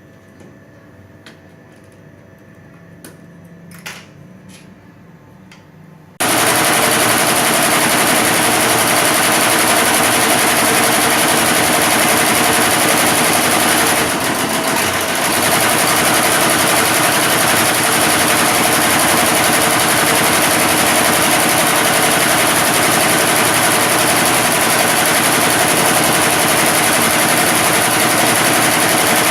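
Computerized embroidery machine: a few small clicks, then about six seconds in it starts stitching and runs at full speed with a loud, rapid, steady needle clatter that eases briefly about halfway through.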